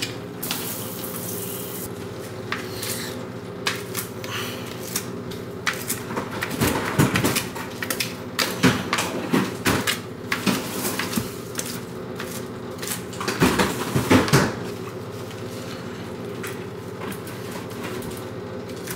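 A utensil stirring in a cast-iron baking dish at first, then a knife chopping crisp cooked bacon on a plastic cutting board in bursts of rapid knocks, loudest about a third of the way in and again near three quarters. A steady low hum runs underneath.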